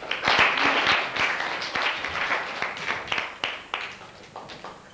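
Audience applauding: dense hand clapping that starts all at once, then thins out into a few scattered claps and dies away near the end.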